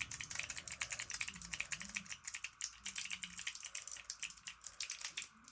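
Keycap fidget clicker clicked rapidly over and over: a dense run of sharp clicks like typing on a keyboard.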